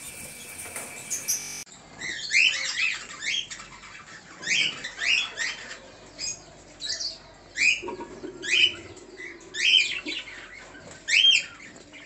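A flock of budgerigars chirping: short, sharp calls that rise and fall in pitch, coming in quick clusters, starting a little under two seconds in.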